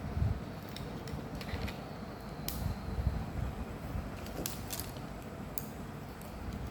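Scattered small clicks and taps of a smartphone and its parts being handled, over a low rumble, with a cluster of clicks about four and a half seconds in.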